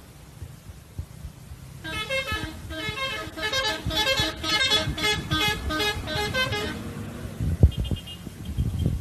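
Telolet horn of a Sinar Jaya bus playing a quick multi-note tune, the pitch changing several times a second, for about five seconds. It sounds over the low rumble of engines, which grows louder near the end.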